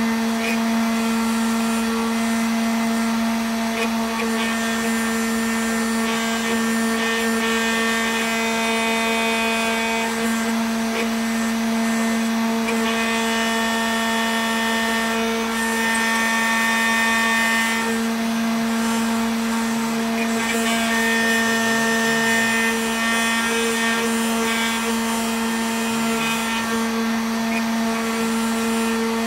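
Homemade CNC machine's spindle running steadily with a constant whine, its engraving bit carving a block of candle wax, with higher tones shifting and coming and going as the machine moves.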